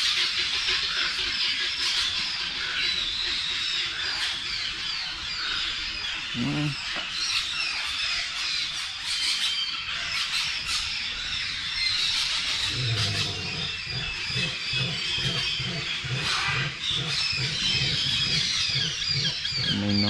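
Many small birds chirping and twittering together in a dense chorus from the aviaries. From a little past halfway, a low, rapidly repeated pulsing call joins in and carries on to the end.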